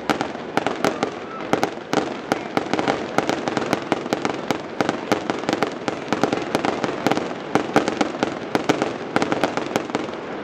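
Fireworks going off without a break: a rapid run of sharp pops and small bangs, several a second, over a steady crackling hiss.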